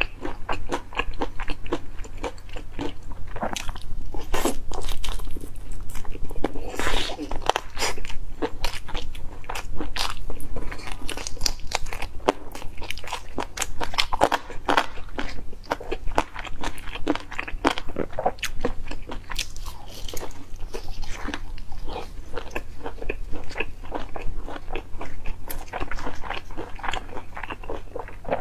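Crispy fried chicken being bitten and chewed close to a clip-on microphone: many crackly crunches in quick succession with wet chewing between them. A faint steady low hum runs underneath.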